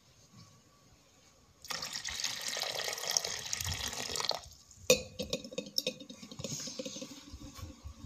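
Water pouring into a steel pot for about two and a half seconds. A sharp knock follows, then irregular small splashes and clicks in the water.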